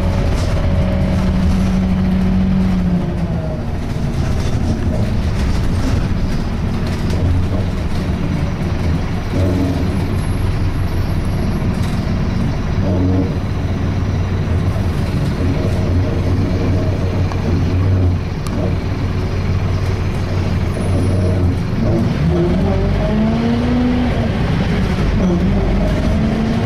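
Scania K230 diesel bus in motion, heard from inside the bus, with a loud groaning noise: a tone that holds steady for a couple of seconds near the start, then rises and falls in pitch again near the end. The owner has no idea of the cause and says the bus sounds awful.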